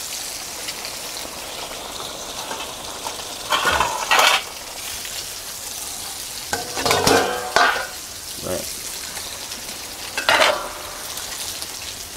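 Mackerel frying in oil in a pan, a steady sizzle, broken by loud clatters and clinks of a metal plate and utensils about four, seven and ten seconds in.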